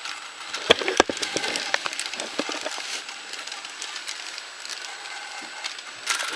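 Battery-powered N gauge toy train running slowly on plastic track: a steady small-motor whir with irregular clicks from the wheels over the track, and two sharper knocks a little under a second in.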